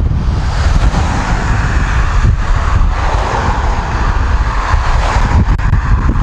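Loud wind buffeting the microphone of a camera riding on a moving bicycle, over a steady rushing hiss of air and road noise.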